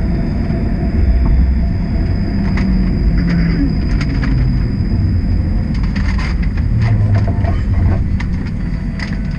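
TTC streetcar running along its rails, heard from inside: a steady low rumble with a faint high whine, and scattered clicks and rattles from about two and a half seconds in.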